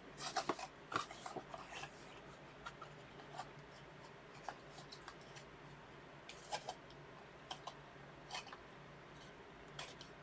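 Scattered light clicks, scrapes and rustles of trading card boxes and packaging being handled and opened on a table, with a few sharper ticks.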